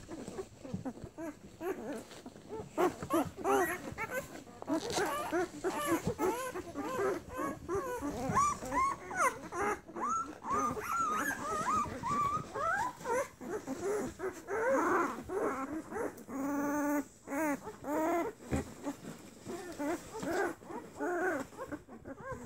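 A litter of Tamaskan puppies whimpering and squeaking as they jostle to get at their mother's teats to nurse, many short high-pitched whines overlapping without a break. About seventeen seconds in, one longer, steadier whine stands out.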